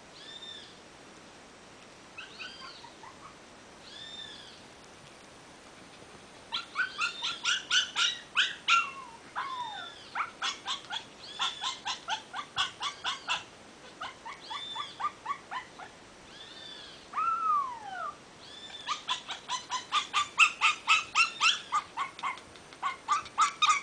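Teacup Maltese puppies whimpering and yapping in high-pitched cries: a few soft separate whines at first, then from about six seconds in rapid strings of yaps, several a second, broken by a long falling whine.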